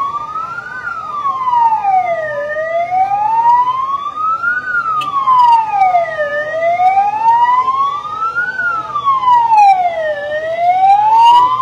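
Emergency-vehicle siren in a slow wail, rising and falling about once every four seconds, with a steady high tone held alongside it for the first half.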